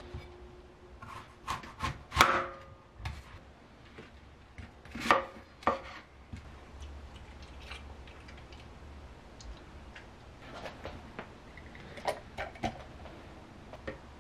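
Chef's knife cutting through an apple on a wooden cutting board, the blade knocking on the board several times. Near the end, a few light knocks as cut apple pieces are dropped into a plastic blender jar.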